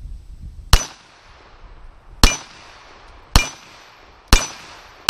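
Springfield Armory 1911A1 stainless pistol firing: four shots about a second apart, with a fifth right at the end, each followed by a short metallic ring.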